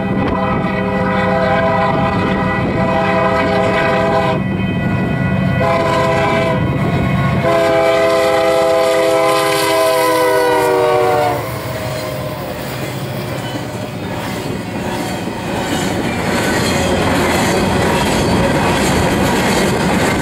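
Union Pacific SD70M diesel locomotive's air horn sounding a grade-crossing signal: a long blast, a short blast, then a final long blast whose pitch drops as the locomotive passes, about 11 seconds in. The horn gives way to the steady clatter of empty intermodal well cars rolling over the rail joints.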